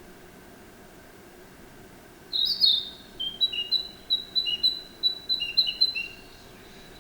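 Narcissus flycatcher singing. After about two seconds of quiet, one song phrase begins with a quick cluster of high notes, then runs on in short notes alternating between a higher and a lower pitch, ending about six seconds in.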